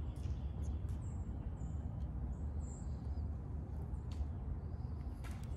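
Faint, short high-pitched animal chirps, which the listener hears as squirrels, over a steady low rumble, with a few faint clicks.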